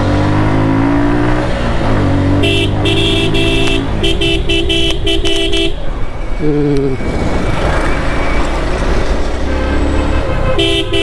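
Suzuki Gixxer single-cylinder motorcycle engine running on the move, its pitch shifting as it accelerates, with vehicle horns honking in the traffic: one long honk, then a string of short toots, and another honk near the end.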